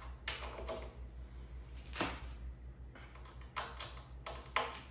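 A few short knocks and clicks from bookcase hardware and parts being handled by hand on the floor, with one sharper click about two seconds in and a quick cluster near the end.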